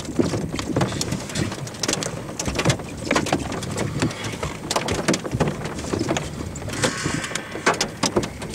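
Raindrops striking a car's roof and windshield, heard from inside the car as steady irregular tapping.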